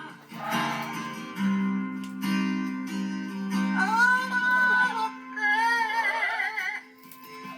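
A song with strummed acoustic guitar and a wavering, vibrato singing voice, played back over a TV or computer speaker.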